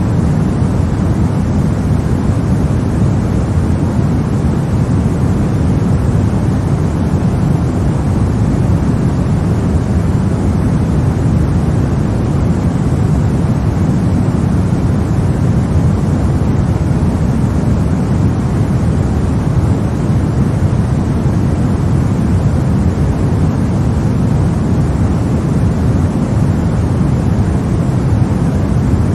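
Steady white-noise sleep sound for babies: a continuous even hush with no rhythm or tone, strongest in the low range with little high hiss.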